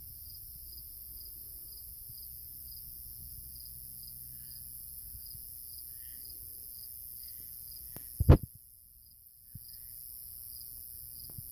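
Crickets chirping steadily in an even pulse, a little more than two chirps a second, over a constant high insect hiss. About eight seconds in, a single sharp knock is the loudest sound.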